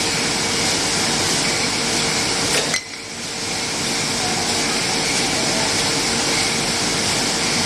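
Steady mechanical running noise of a glass-jar packaging line with a conveyor, with a constant hum and faint glass clinks; the noise drops briefly about three seconds in, then resumes.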